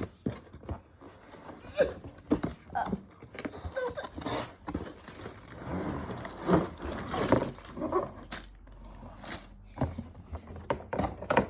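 Cardboard box being opened by hand and its packaging handled: irregular scraping, rustling and knocks.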